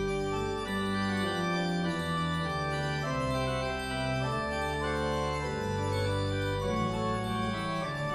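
Church organ playing instrumental music in sustained chords over deep held bass notes, the chords changing every second or so.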